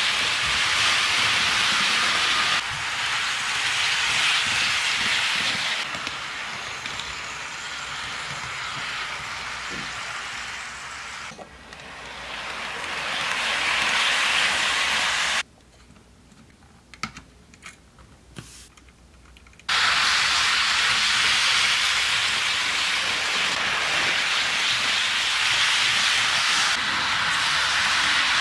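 HO-scale model trains, a Piko ICE 3 and a Bachmann Acela Express, running on sectional track: a steady rushing hiss of motors and wheels on rail. Just past the middle it drops to near quiet with a few faint clicks for about four seconds, then returns at full level.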